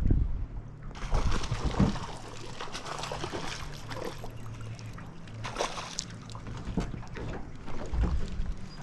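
Water sloshing and splashing around a small fishing boat, with a low thump at the start.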